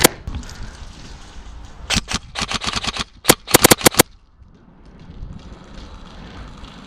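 Airsoft electric gun (AEG) firing two rapid bursts of sharp, clicky shots about two seconds in, the second burst after a brief pause.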